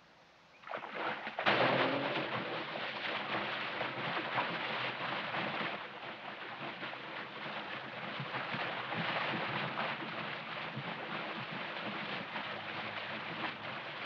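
Continuous splashing of water churned up by a man swimming fast through a river, starting suddenly about a second and a half in.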